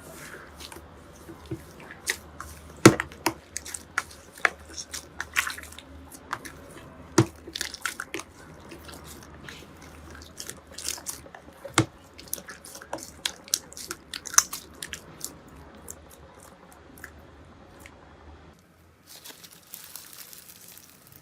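Slime being squeezed and pressed by hand, giving irregular wet clicks and pops. About eighteen seconds in, the sound changes to a denser, finer crackling.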